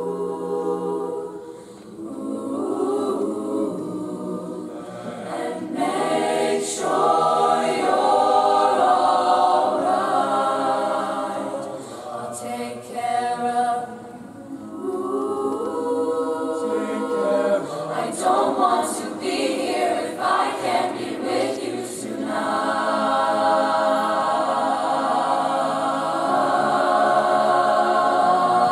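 An a cappella mixed-voice ensemble singing a pop arrangement in close harmony, unaccompanied. It goes in phrases with short breaths between them and ends on long held chords.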